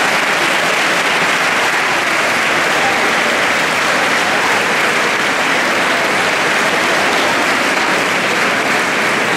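A large audience applauding steadily, a dense, even clatter of many hands clapping without a break.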